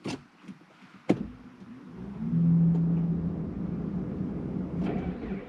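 2004 Saab 9-5 engine starting with difficulty: a click about a second in, brief cranking, then the engine catches about two seconds in and settles into a steady idle. It is running on petrol, before its LPG system switches over.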